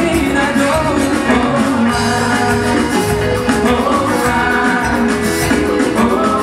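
Live Latin pop band playing on stage, with horns, drums and percussion, and singing.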